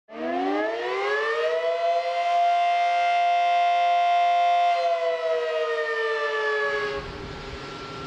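Outdoor warning siren winding up, holding a steady chord of several pitches at once, then winding down. It cuts off abruptly about seven seconds in, leaving wind noise.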